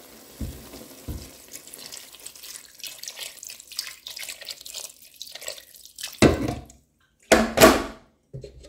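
Water running and trickling as it is added to a pot of chicken cooking in its own juices, then two short, much louder splashing rushes about six and seven and a half seconds in.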